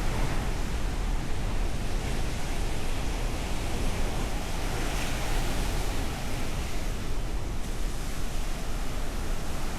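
Ocean surf: waves breaking and washing on a beach, a steady rush with a low rumble underneath.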